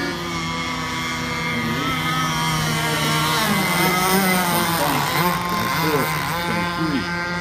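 Several radio-controlled racing boats running at speed, their motors making a steady pitched whine. From about halfway through, pitches sweep up and down over and over as boats pass.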